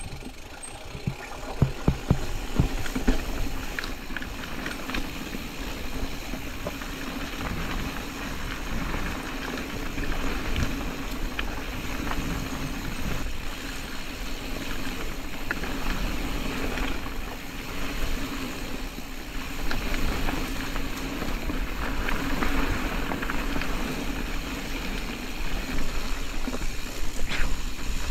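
Specialized Status 140 mountain bike being ridden down a rocky dirt trail: a steady rumble of tyres rolling and the bike rattling, with several sharp knocks over rocks about one to three seconds in.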